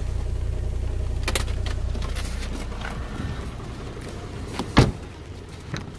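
A low steady rumble with faint handling clicks fades away, then a single sharp thump near the end as a Volvo V70 car door is shut.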